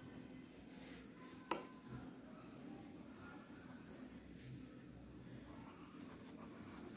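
Insect chirping in an even rhythm, about three chirps every two seconds, over a steady high-pitched trill; a single sharp click about one and a half seconds in.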